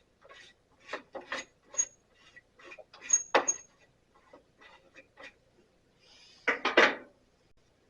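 Irregular clicks, taps and light metallic clinks of hand tools on a Sears Craftsman bandsaw's metal parts as the lower pulley is loosened and moved out, with a louder clatter near the end.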